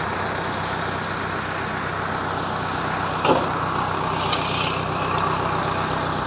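Heavy diesel engines running steadily, with a brief sharp sound about three seconds in and a short hiss a second later.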